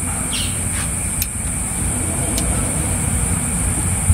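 Light metallic clicks, about four in the first two and a half seconds, as a bolt and small cover plate are handled on a tractor's hydraulic lift cover. Under them runs a steady low mechanical drone with a constant high hiss.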